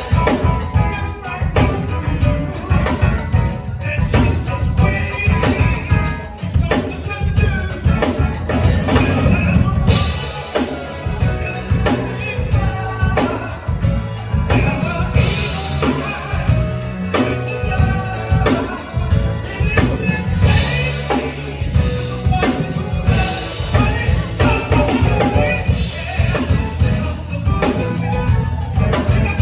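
Live band music with a drum kit keeping a steady beat over a deep bass line, and a melody line weaving above.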